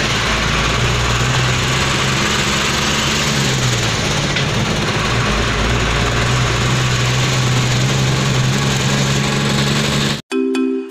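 Truck diesel engine running, heard from inside the cab while driving slowly in traffic; its pitch drops a few seconds in and picks up again about a second later. Near the end it cuts off abruptly to music with bell-like notes.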